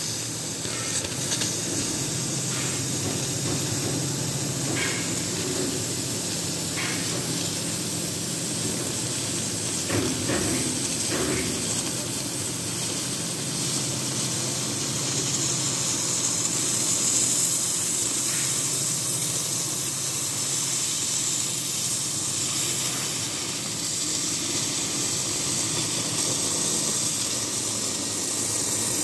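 CNC oxy-fuel cutting torch hissing steadily as its gas jet cuts through steel plate, with a low machine hum underneath and a few faint clicks in the first half.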